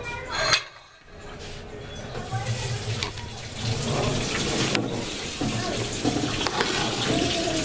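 Running water, a steady hiss that builds over the first couple of seconds and then holds, with a few light knocks.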